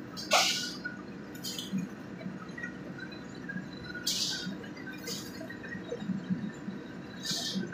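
A wok of simmering sauce with snails bubbling on the burner, with about five short hisses as the ladle stirs and scoops the hot liquid, over a steady low rumble.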